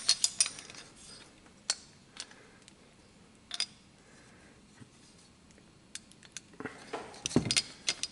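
Scattered metallic clicks and clinks as a removed Briggs & Stratton cylinder head is handled and turned over in the hands, with a cluster of knocks near the end as it is set down on a workbench.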